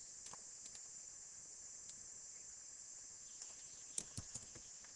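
Steady high hiss of the recording's noise floor, with a few faint short clicks: one just after the start and three close together about four seconds in.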